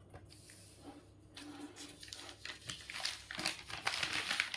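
Rustling and crinkling with many small clicks, growing louder through the second half.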